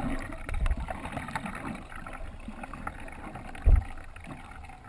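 Underwater sound from a submerged camera: muffled sloshing and crackling water, with a few low knocks, the heaviest about three and a half seconds in.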